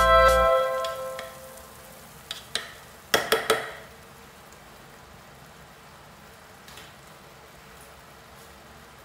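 Background music fades out in the first second, then a few sharp knocks on the aluminium pot, three in quick succession about three seconds in, as the wooden stirring spoon is knocked against it and lifted out. After that, beef chunks sizzle faintly and steadily in the pot.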